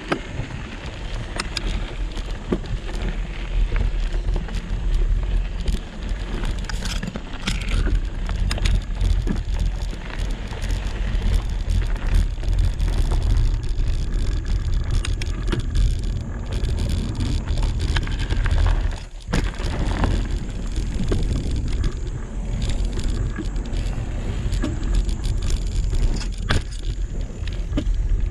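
Mountain bike rolling slowly over gravel and onto a dirt trail: knobby tyres crunching, a steady deep rumble, and scattered clicks and knocks from the bike over bumps.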